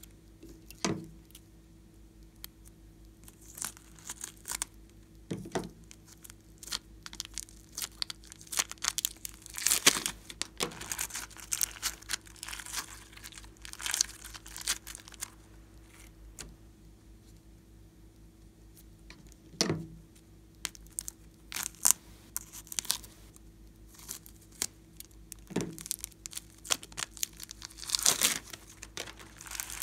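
Thin plastic piping bags crinkling and tearing as they are pulled open and peeled off balls of foam-bead floam, in irregular bursts of crackly rustling with a few sharper snaps.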